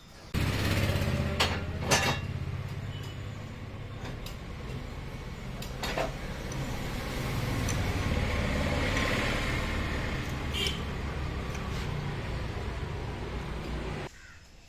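Royal Enfield Bullet 350 single-cylinder engine running steadily, with a few sharp clicks over it; it starts abruptly and cuts off about fourteen seconds in.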